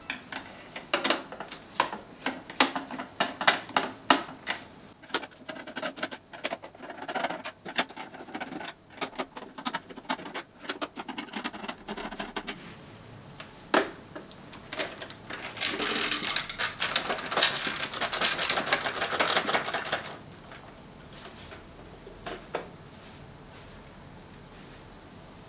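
Screwdriver turning out the screws of the plastic back case of a Sony CFS-W600 boombox: a run of sharp, irregular clicks and scrapes, with a denser stretch of rapid ticking a little past halfway.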